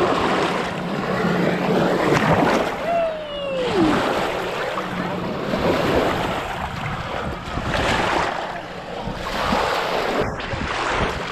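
Rushing wind and water noise that surges and eases every few seconds, with a faint steady hum in the first half. A single falling squeal comes about three seconds in.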